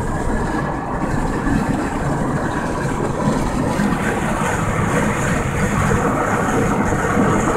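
Steady road and engine noise inside the cabin of a moving Peugeot car.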